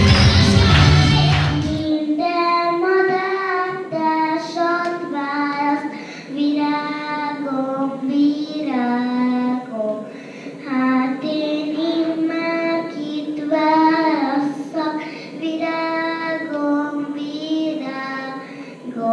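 Loud recorded music with a heavy bass stops abruptly about two seconds in. A young girl then sings solo into a microphone, a single voice with no accompaniment audible beneath it.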